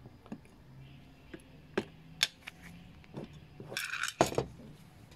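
Light metal clicks and clinks of small steel carburetor parts and tweezers against a stainless mesh tea strainer, with a short rattle and then the loudest snap about four seconds in as the strainer's two halves are closed.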